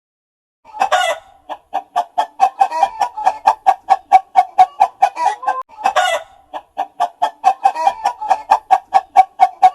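Chicken clucking in a rapid, even run of about four to five clucks a second, broken by two louder squawks, one about a second in and one about six seconds in.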